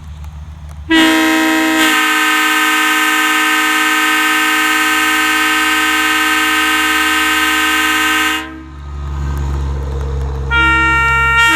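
Restored Leslie Supertyfon three-chime train horns blowing. One long, steady chord blast of about seven seconds cuts off sharply. After a pause with a low rumble, a second chord blast starts near the end.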